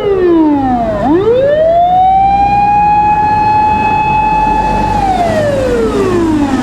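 Japanese fire engine's mechanical motor siren. It winds down, spins back up to a high wail held for about three seconds, then winds down again and begins to rise near the end, over a low truck-engine rumble.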